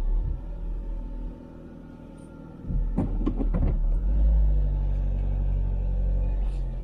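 Camper van engine rumbling at low speed, heard from inside the cab. It drops quieter for a second or so, a quick series of knocks comes about three seconds in, and then the engine picks up again.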